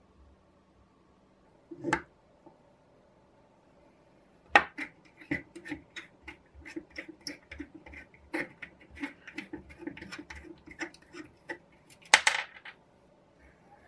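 A single knock about two seconds in, then a long run of small metallic clicks and scrapes with a louder scrape near the end: a nut being turned off its thread by hand on the steel barrel of a 1950s electric soldering iron.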